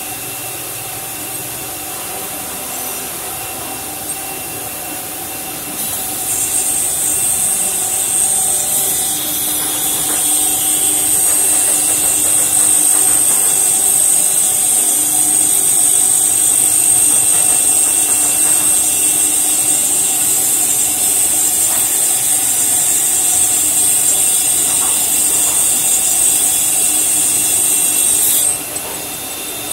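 A CNC router's spindle driving a small circular saw blade through aluminum sheet: a steady high-pitched whine with cutting noise. It gets louder about six seconds in and drops back suddenly near the end.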